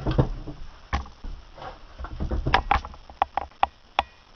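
Metal-on-metal clicks, knocks and scraping as the piston and connecting rod of a Tecumseh H25 small engine are worked up through the cylinder bore by hand, with a quick run of sharp clicks about two and a half to four seconds in.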